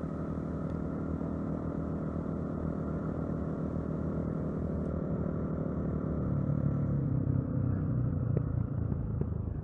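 Dirt bike engine running as the bike is ridden. About six seconds in, its note drops lower and grows a little louder.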